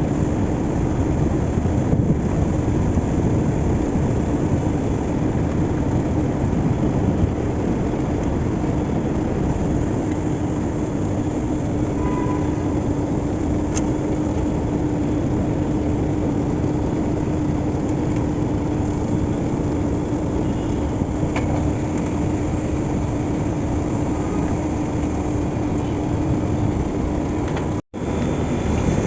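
Steady machine running noise with a constant low hum. It drops out for an instant near the end.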